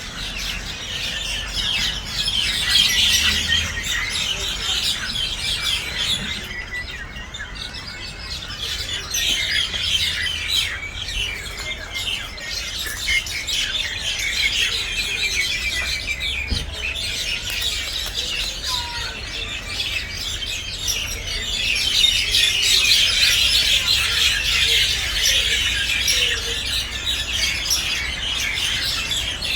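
A flock of common mynas calling together in a dense, noisy chatter of many overlapping calls. It swells louder a few seconds in and again about two-thirds of the way through.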